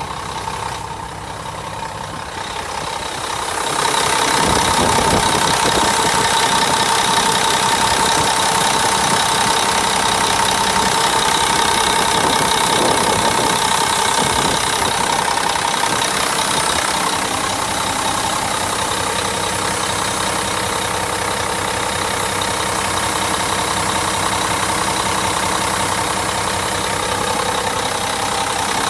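Diesel engine of a 1998 Mack CH613 tractor truck idling steadily, with a steady high whine over the engine note; it gets louder about four seconds in.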